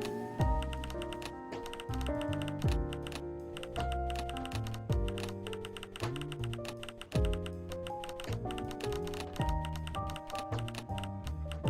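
Instrumental music: held chords and melody notes over deep bass hits, with a dense clicking percussion.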